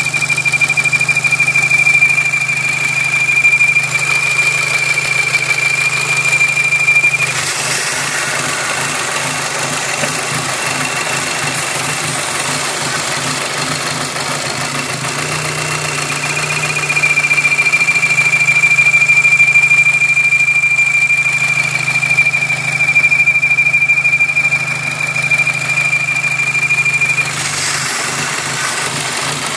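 Volkswagen Golf Mk5 GTI's 2.0 TFSI four-cylinder turbo engine idling, with a steady high-pitched whistle over it: the strange noise. The whistle stops after about seven seconds and comes back about halfway through for another ten seconds.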